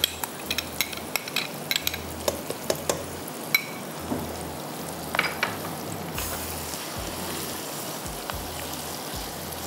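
A spoon scraping and clinking against a karahi as vegetables and spices in fresh cream are stirred, over a steady sizzle. The clinks come thick at first and thin out about halfway, leaving mostly the sizzle.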